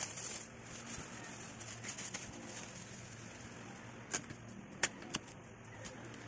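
Thin plastic bag crinkling as it is drawn over a plastic squeeze bottle and twisted closed at the neck, with three sharp clicks about four to five seconds in. A steady low hum runs underneath.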